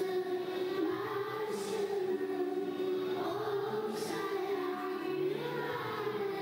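Children's choir of young girls singing an ilahi, a Turkish Islamic hymn, in long held notes that step slowly up and down in pitch.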